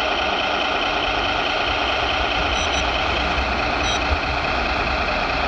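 Radio-controlled model trucks' sound modules playing a steady diesel engine idle, with a few short high beeps about two and a half and four seconds in.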